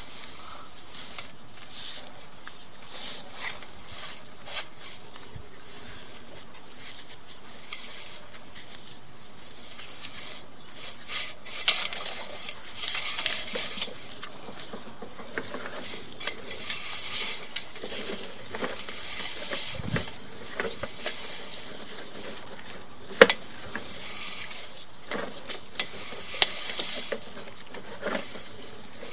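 Sewer inspection camera's push cable being worked and fed into the line: scattered scraping, rattling and sharp clicks over a steady hiss, busier from about a third of the way in as the camera advances.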